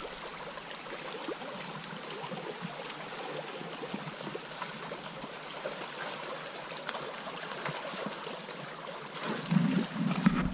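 Water rushing and splashing steadily over a river fish weir, with a constant crackle of small splashes. Near the end a louder low rumble comes in briefly.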